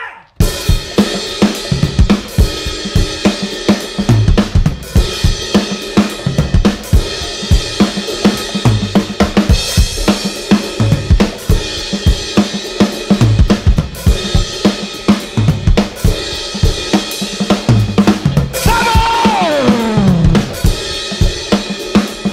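Live garage-punk band music: a drum kit played hard, with steady snare, bass drum and cymbal hits under sustained pitched instruments. About three-quarters of the way through, a long falling pitch slide comes in over the drums.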